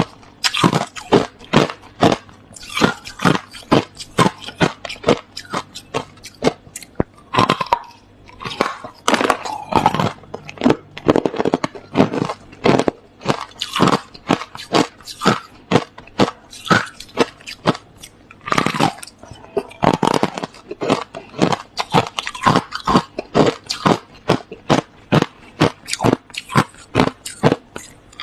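Clear hard crushed ice being bitten and chewed close to the microphone: a rapid, irregular run of sharp crunches, several a second.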